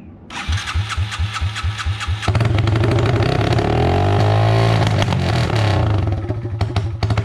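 Yamaha TT-R225 single-cylinder four-stroke dirt bike engine, run without a muffler, cranking over in even pulses for about two seconds, then catching and running loud. It revs up and back down, then keeps running unevenly.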